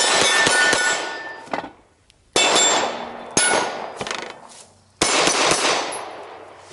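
Pistol fired in several quick strings of shots, each string starting suddenly and trailing off in echo, with steel targets ringing after the hits.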